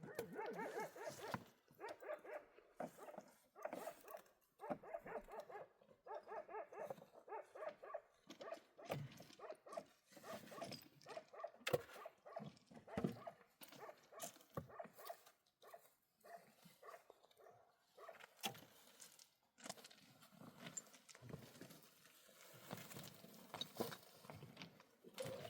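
A dog making short, pitched calls in quick runs, mostly in the first ten seconds, with scattered knocks and clicks.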